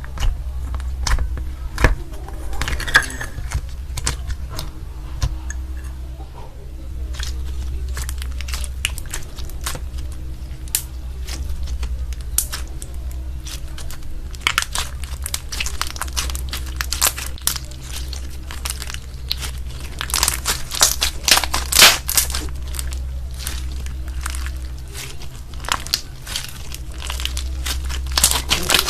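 Slime being squeezed and pressed by hand, making dense crackling and popping clicks that grow thickest and loudest about twenty seconds in. A steady low hum runs underneath.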